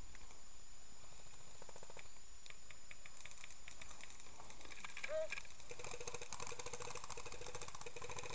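Rustling and runs of rapid clicks as a player moves fast through woodland undergrowth, the clicking denser and louder from about five seconds in. A faint steady high whine runs underneath.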